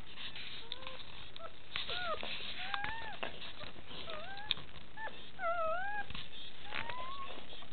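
Newborn puppy squeaking and whimpering: a dozen or so short, high squeals that rise and fall in pitch, some wavering, with faint clicks and rustles between them.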